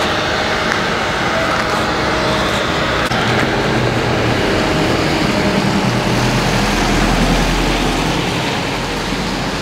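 A motor engine running steadily under a dense roar, its low rumble growing heavier a little past the middle and easing near the end.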